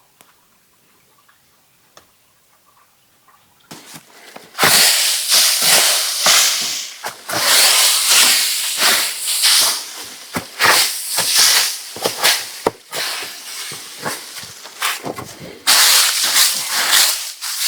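Dry leaves and forest-floor debris rustling and crackling as they are scraped and swept off the ground, in quick irregular strokes, beginning about four and a half seconds in after near silence.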